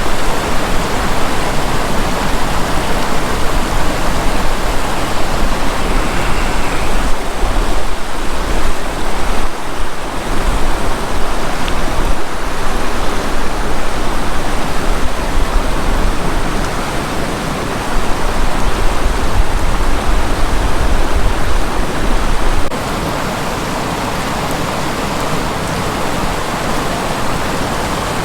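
Steady rush of a swollen river flowing close by, with uneven low rumble; the level drops a step about 23 seconds in and runs more evenly after.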